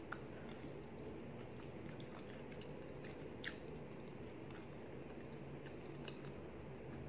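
A person chewing a mouthful of rice and curry, with scattered small wet mouth clicks over a steady low hum.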